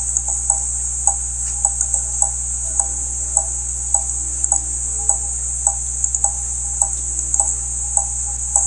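Steady, even ticking, a little under two ticks a second: the mysterious ticking noise. It sits over a constant low electrical hum and a high hiss.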